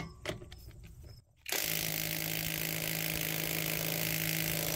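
Cordless brushless impact wrench on its high setting, run in reverse on a wheel lug nut: after a few light clicks, it starts hammering about a second and a half in and keeps hammering steadily, breaking loose a lug nut torqued to 120 foot-pounds.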